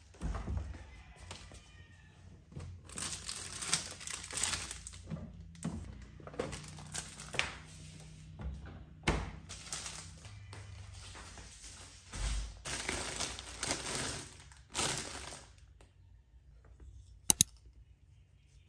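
Plastic packaging rustling and crinkling in bursts as things are handled, with a few soft thumps and two sharp clicks near the end.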